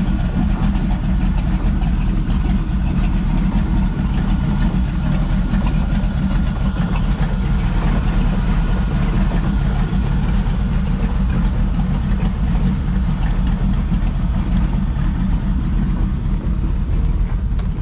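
Donzi 18's NASCAR V8 with a carburettor, idling steadily with a deep, even rumble.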